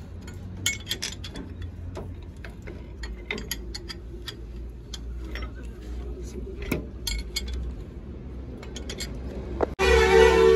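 Scattered light metallic clicks and clinks of a wrench and a pipe fitting being worked on a truck's rear axle, over a low steady hum. Near the end a brief, louder burst with a steady pitch cuts in and stops abruptly.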